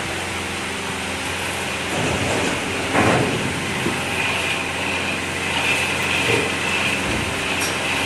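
Flatbed screen printing machine running: a steady mechanical hum and hiss. There is a brief louder rush about three seconds in, and a steady high whine from about four seconds on.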